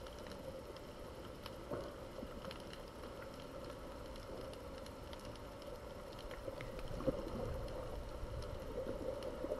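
Muffled underwater ambience picked up by an underwater camera: a faint steady hum with a low rumble and scattered soft clicks, growing slightly louder near the end.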